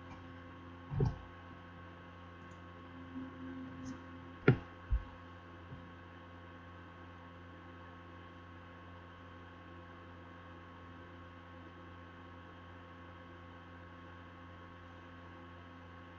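Steady electrical mains hum, with a few short knocks: one about a second in and two close together around four and a half seconds in, the first of that pair the loudest.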